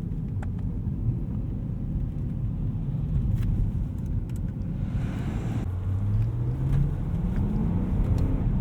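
BMW E92 M3's 4.0-litre V8 running at low revs under steady road rumble, then accelerating from about six seconds in, its note rising steadily. A brief hiss comes just before the engine picks up.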